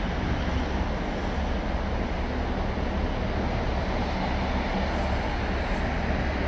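A New Routemaster double-decker bus idling: a steady low rumble with an even hiss over it.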